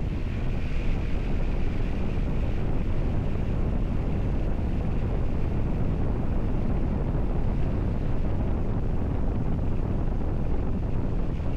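Steady wind buffeting the microphone while travelling along a road, a continuous deep rumble with no breaks.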